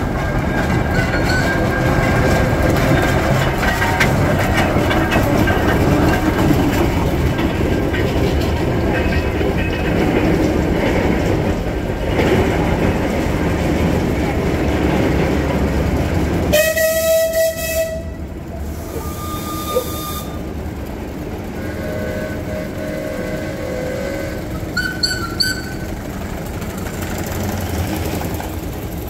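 Vintage farm machinery running with a loud, steady, rattling din. About two-thirds of the way through the sound changes abruptly: a short pitched tone sounds, then the machine noise carries on quieter with a few brief tones.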